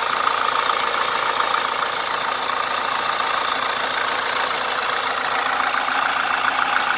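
Fiat Doblo 1.6 Multijet II four-cylinder turbodiesel idling steadily in the engine bay, with a constant whir from the belt drive and the retrofitted AC compressor on its adapted bracket.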